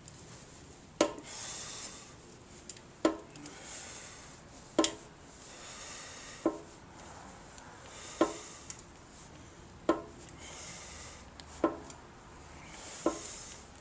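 Dent work on a sheet-metal gas tank: eight sharp knocks at an even pace, about one every second and a half to two seconds, each followed by a short scraping rasp.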